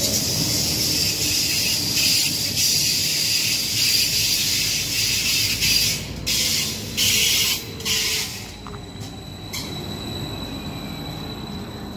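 SÜWEX class 429 Stadler FLIRT electric multiple unit running past close by, its wheels and running gear giving a loud rolling hiss that cuts in and out. The noise drops off about eight and a half seconds in as the last car goes by, leaving a lower rumble.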